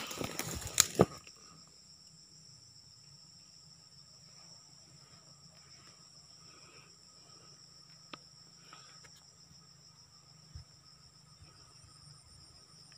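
Footsteps in rubber boots crunching through dry grass and leaf litter for about the first second. After that a steady, faint, high-pitched insect chorus runs on, with one sharp click about eight seconds in.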